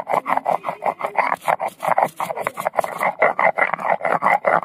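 Stone roller rocked quickly over a flat grinding stone (sil-batta), grinding fresh mint leaves into a wet paste: a rhythmic rasping scrape of stone on stone, about five strokes a second.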